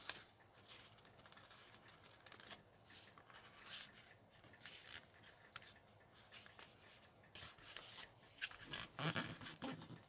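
Faint rustling and scraping of a cardstock card base being handled, with small taps, as its crease is pressed flat by hand. The handling gets busier in the last few seconds.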